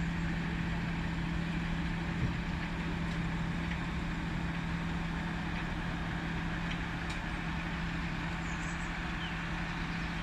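Flatbed tow truck engine idling steadily, a constant low hum.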